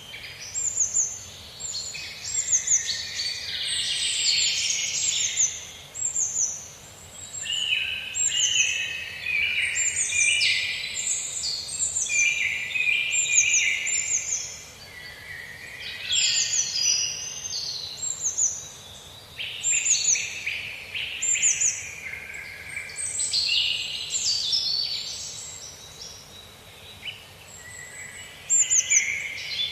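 Several songbirds chirping and singing at once, a busy mix of quick high falling chirps and warbling song phrases, with brief lulls.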